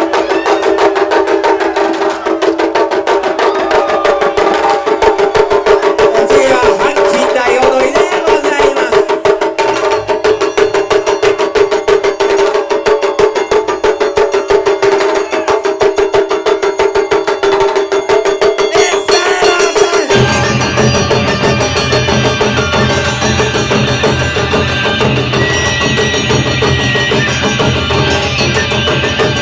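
Live Japanese taiko drum ensemble playing fast, dense drumming under a held pitched tone. About twenty seconds in, the music changes and a deeper, fuller part joins.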